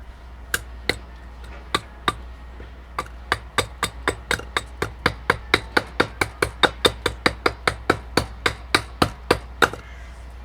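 Small hatchet chopping into a green oak blank, shaping the rounded end of a spoon: a few separate sharp chops, then a fast regular run of about three chops a second that stops shortly before the end.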